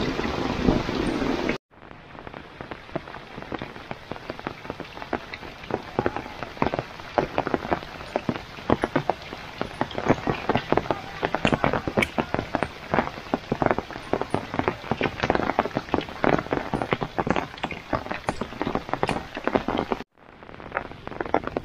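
Rain falling, with many separate drops striking close by over a steady wash. The sound is denser and louder for the first second or so, then cuts out for a moment about two seconds in, and cuts out again briefly near the end.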